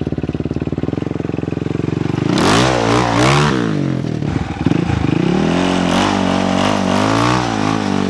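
ATV engine idling, then revved hard over and over from about two seconds in, its pitch rising and falling. The rear wheels, masonry cutting discs, spin in the dirt, raising a rough hiss over the engine.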